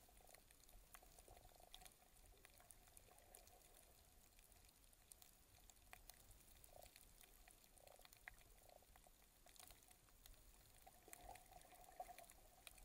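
Near silence underwater: a faint hiss with scattered small clicks and a faint, wavering hum.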